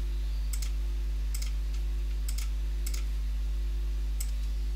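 Computer mouse clicks, about eight short sharp clicks with several in quick pairs, over a steady low electrical hum.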